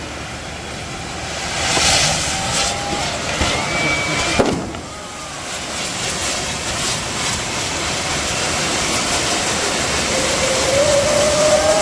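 A kambam, a tall temple-festival fireworks tower, burning with a continuous dense hiss and crackle of fountain fireworks. There is one sharp bang about four seconds in, and the rush grows louder toward the end.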